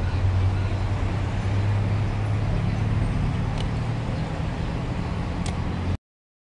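Steady street traffic noise with a low engine rumble and no speech. The sound cuts out to dead silence about six seconds in.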